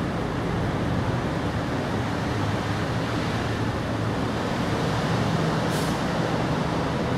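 Steady, rumbling background noise with no clear source of its own, and a brief hiss about six seconds in.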